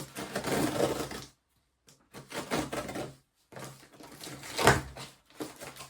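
Plastic packaging rustling and plastic food-storage containers clattering as a package is opened and handled, in three spells of handling with a sharp knock about three quarters of the way through.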